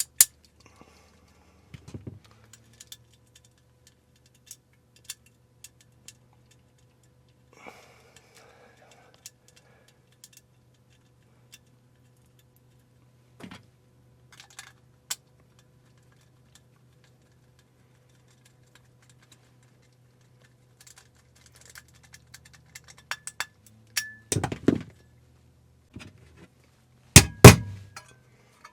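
Small metal hardware and a metal electrical box being handled: scattered light clicks and clinks, with louder knocks and clatter about 24 and 27 seconds in. A steady low hum runs underneath.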